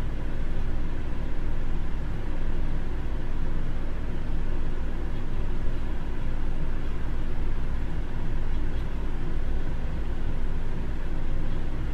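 Steady low rumble with a faint hum, unchanging throughout: continuous background machine or room noise.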